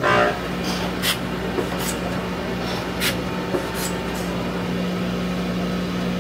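Koch peanut-connector insertion machine running its drill-and-insert cycle on a wooden board: a loud burst right at the start, then a steady machine hum with a few sharp clicks.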